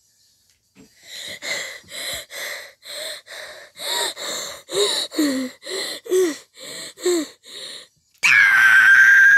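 A person's voice panting in quick, audible gasps, about two a second, then breaking into a sudden, loud, high-pitched scream near the end.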